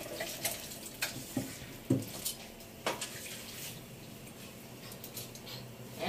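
Oil sizzling in a frying pan on a gas stove, a faint steady hiss, with three light knocks of handling close to the microphone in the first half.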